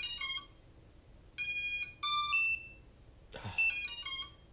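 Racing drone's onboard buzzer sounding in short bursts of high-pitched, stepped beeps, about three bursts in quick succession, set off as the quad's battery is being disconnected.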